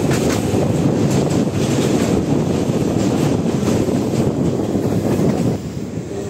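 A Garib Rath Express train running at speed, heard from the coach doorway as a heavy rumble buried in strong wind buffeting on the microphone. The level drops noticeably about a second before the end.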